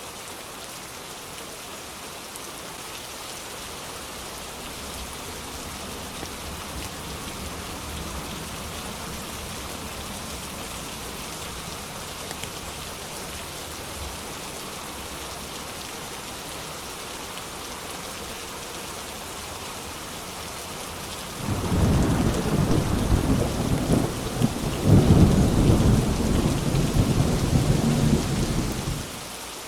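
Steady rain, with a long rolling rumble of thunder coming in about two-thirds of the way through. The thunder is the loudest thing here, swelling near the end and then cutting off suddenly.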